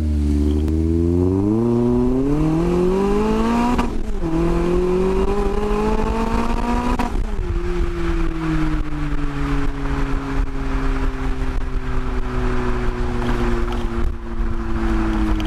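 Renault Clio III RS200's 2.0-litre four-cylinder engine, heard through the exhaust, revs up hard under acceleration. The note drops sharply at gear changes about 4 and 7 seconds in, then falls slowly and steadily.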